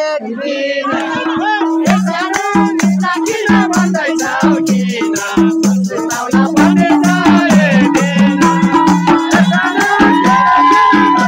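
Live Nepali lok dohori folk singing with a rhythmic percussion accompaniment; a steady beat of sharp strokes and a low pitched drum-like pulse comes in about two seconds in under the singing voices.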